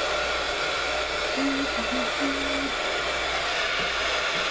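Handheld craft heat gun blowing steadily, its fan and air rushing evenly while it dries freshly applied paint on the page.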